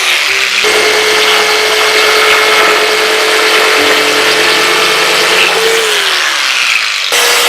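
Electric power saw cutting through 1/2-inch plywood, the motor whining steadily under the noise of the cut. Around six seconds in the pitch sinks and the sound eases off, then it comes back at full strength near the end.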